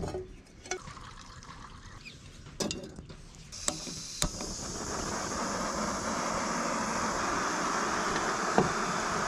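A portable gas-canister camping stove being lit: a few clicks and knocks as the pot is set on, then the burner starts hissing suddenly about three and a half seconds in. The hiss swells briefly and stays steady.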